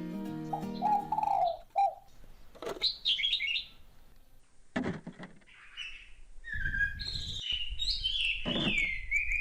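Small birds chirping in short high calls, at first scattered and then in a quick run of repeated chirps near the end. A low rumble sits under the later chirps.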